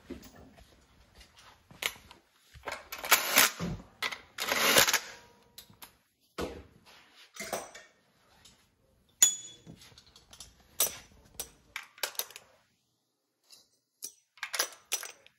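Metal hand tools and engine accessory-drive parts clinking and clanking in a series of sharp knocks, with a couple of longer rattles a few seconds in and a short metallic ring about nine seconds in.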